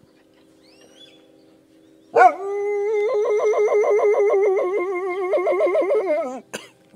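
A dog howling: one long howl that starts about two seconds in and lasts about four seconds, its pitch wavering quickly, about five wobbles a second, before it falls away.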